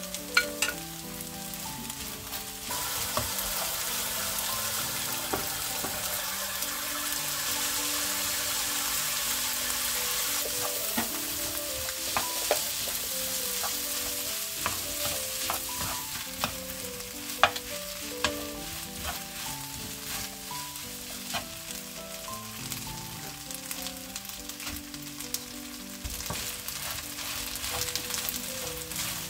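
Fried rice stir-frying in a nonstick wok: steady sizzling that grows louder about three seconds in, with the wooden spatula scraping the pan and now and then tapping it sharply.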